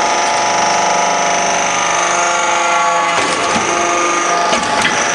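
Metal-scrap briquetting press running, with a steady multi-tone machine whine. A few sharp metallic knocks come just after three seconds and again near the end.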